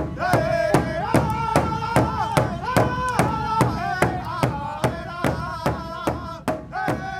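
Drum song: a steady drumbeat, about two and a half beats a second, under singing voices, fading out near the end.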